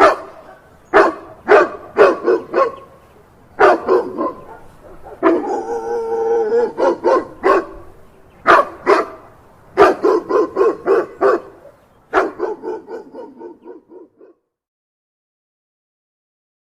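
Dog barking in short bursts and quick runs, with a longer whining stretch near the middle. The barks trail off and stop about two-thirds of the way through.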